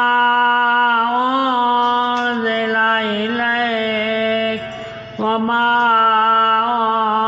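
A man reciting the Quran in slow, melodic tajweed style, holding long drawn-out notes that glide gently in pitch, with a brief pause for breath about five seconds in.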